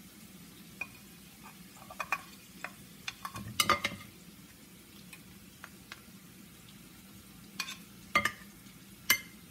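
Sliced onions frying with a faint sizzle in a nonstick pan, while food is scraped off a plate into it, with a handful of sharp clinks and knocks of plate and wooden spoon against the pan. The loudest knocks come about four seconds in.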